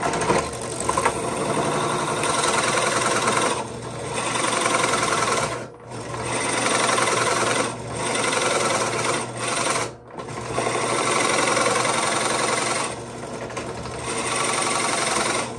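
Drill press running a 2 1/8-inch Warrior Forstner bit through dense red oak, the cutting noise swelling and easing as the feed pressure changes and dropping off briefly about five times. The large bit is labouring: it is hard to get through hardwood and takes a lot of horsepower.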